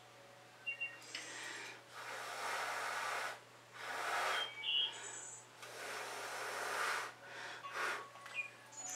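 Someone blowing hard by mouth onto wet acrylic paint on a canvas to push it out into blooms: three long breathy puffs of about a second each, then a short fourth one near the end.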